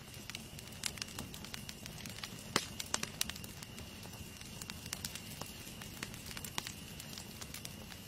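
Wood campfire burning, with irregular sharp crackles and pops over a low steady rustle of flames; the sharpest pop comes about two and a half seconds in.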